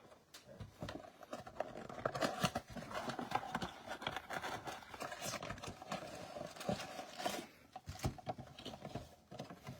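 A trading-card blaster box being opened and handled by hand: irregular crinkling, tearing, tapping and scraping of plastic wrap and cardboard.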